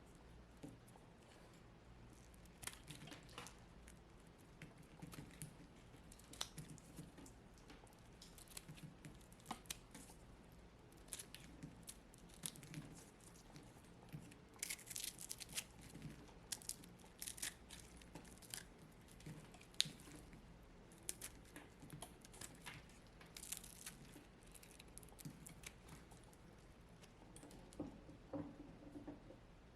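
A dry, brittle block crumbling and crackling, giving many small, sharp clicks and crunches in uneven clusters. The sound is thickest through the middle stretch.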